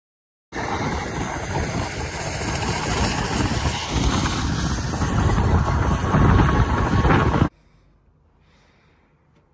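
Strong wind blowing across the microphone: a loud, steady rushing noise, heaviest in the low end, that starts abruptly about half a second in and cuts off suddenly about seven seconds later, leaving only faint room tone.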